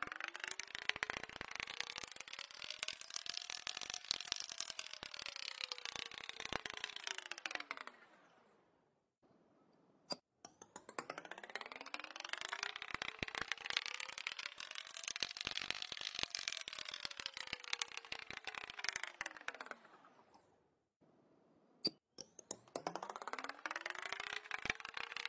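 Thick paint being mixed with a metal palette knife in a ceramic palette: dense sticky clicks over a pitched tone that slowly rises and then falls. This happens three times, with a short pause and a single click between each pass.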